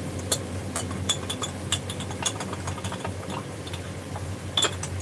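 A spoon clinking and scraping against a glass jar and a cooking pot: a string of small, irregular clinks over a steady low hum.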